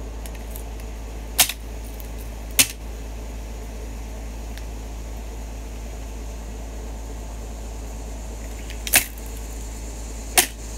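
Four sharp clicks, spread over several seconds, as a line guide is forced off a fishing rod, over a steady low hum.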